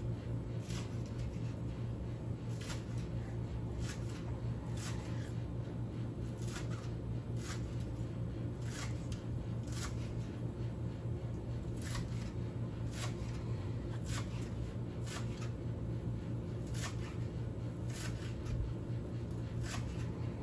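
Kitchen knife slicing a raw tuna loin on a bamboo cutting board, the blade tapping the board about once a second with each cut.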